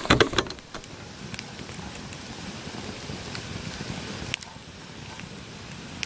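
A wood campfire burning under a pot of water, an even crackling hiss with a sharp pop every second or so. A couple of knocks at the very start come from handling a plastic water jug.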